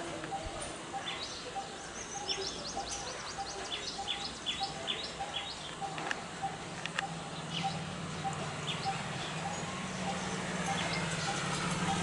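Coppersmith barbet calling its low, evenly repeated 'tuk-tuk-tuk' note, a few notes a second, with other birds chirping higher over it. A low steady hum comes in about halfway.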